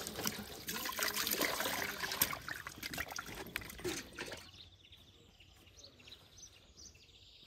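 Water poured from a jug splashing and trickling over raw lamb meat in a metal basin, with wet slapping as hands rub and rinse the meat. The splashing stops about halfway through, leaving only faint sounds.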